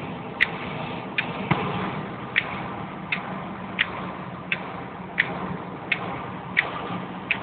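Car windscreen wipers running, with a sharp tick about every 0.7 seconds as the blades sweep and turn on the glass. A steady low drone of the moving car's engine and road noise sits under the ticks, heard from inside the cabin.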